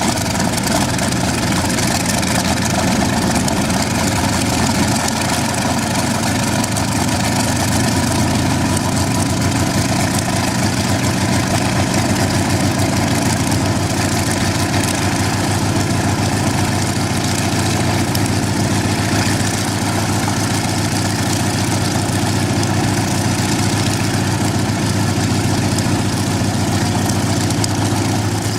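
Old helicopter engine running steadily, a dense, even machine noise that holds at a constant level.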